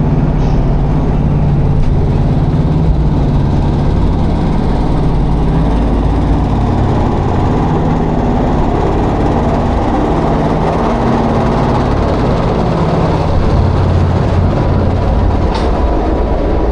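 Water coaster boat being hauled up the lift hill, a steady low mechanical rumble and hum from the lift drive.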